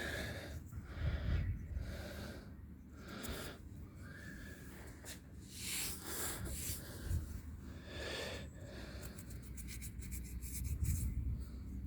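Soft rubbing and handling noises as a freshly dug coin is cleaned off by hand, with breathing close to the microphone and a low rumble underneath. A run of small quick clicks comes near the end.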